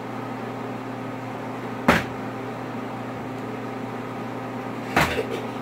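Two sharp thuds about three seconds apart: a plastic water bottle flipped and landing on a wooden table. A steady low hum from a household appliance runs underneath.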